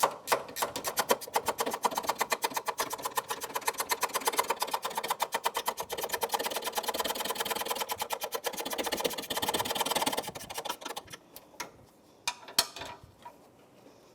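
Ratchet wrench clicking in a fast, even run as it backs out a 10 mm hood-latch mounting bolt, then slowing to a few scattered clicks about ten seconds in as the bolt comes free.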